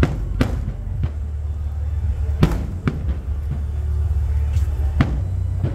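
Aerial firework shells bursting: about six sharp bangs at uneven intervals, each trailing off in an echo, over a steady low rumble.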